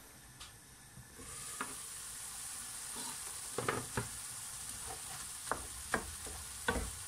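Diced bacon, pork and onion sizzling in a frying pan, the steady hiss starting about a second in. From about halfway, a wooden spoon knocks and scrapes against the pan as the meat is stirred.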